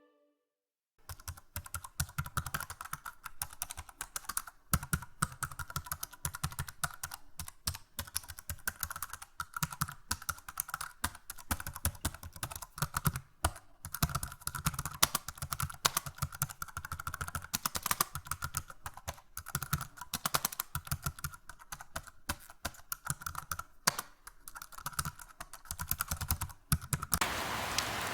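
Typing on a keyboard: a fast, irregular run of key clicks that starts about a second in. Near the end it gives way to a steady hiss.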